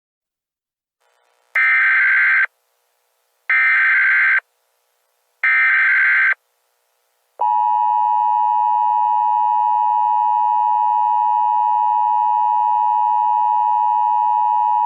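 Emergency Alert System header: three short bursts of SAME digital data tones, then the steady two-tone EAS attention signal, which holds for about eight seconds and signals that an alert message follows.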